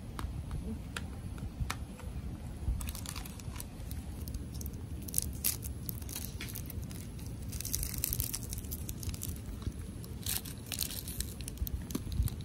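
Plastic wrapper of an individually wrapped Lotus Biscoff biscuit crinkling and tearing as it is opened by hand, in irregular crackly bursts over a low steady rumble.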